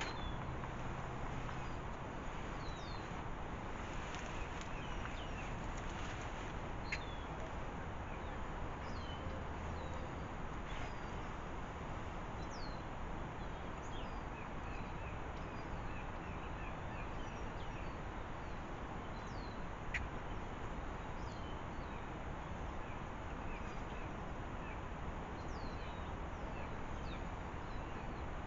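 Outdoor ambience of steady background hiss with small songbirds chirping again and again in short, high, downward-sweeping notes, and a couple of sharp clicks.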